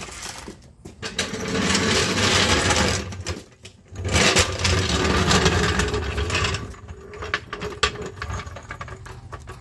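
Steel floor jack rolled across a concrete floor on its casters: a rattling rumble in two pushes of a couple of seconds each, then lighter scattered clicks and knocks as it is set in place.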